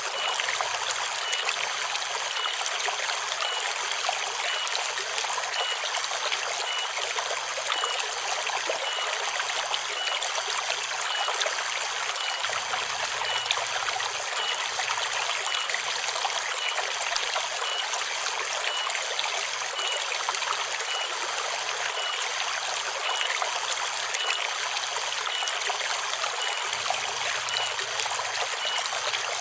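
Forest river water running and trickling steadily over stones, with cicadas (tonggeret) singing in a continuous high drone. A short high pip repeats about every two-thirds of a second throughout.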